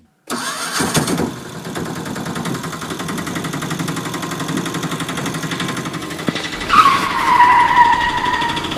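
Engine sound with a fast, even putter running steadily. Near the end a loud high squeal starts, drops a little in pitch and holds for about two seconds.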